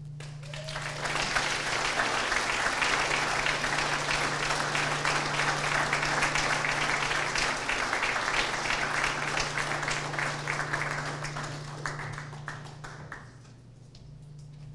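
Audience applauding. The clapping swells up within the first second, holds steady, then tapers off and stops about thirteen seconds in.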